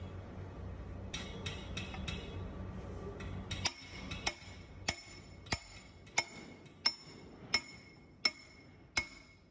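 Hand-held steel tube driver knocked repeatedly onto a helical gear to drive it down onto a gear-reducer shaft: a run of about nine sharp, ringing metallic strikes, roughly one and a half a second, starting about a third of the way in. Before them come a few lighter metal clicks.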